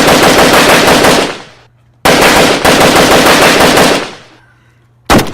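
Airsoft AK-47 rifle firing on full auto in rapid bursts, very loud: a long burst that ends about a second in, a second long burst from about two to four seconds in, and a short burst near the end.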